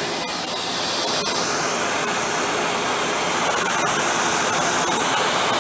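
Hoover WindTunnel Plus canister vacuum (model S3639) running just after switch-on, a steady rush of motor and air through the hose that grows a little louder about two seconds in.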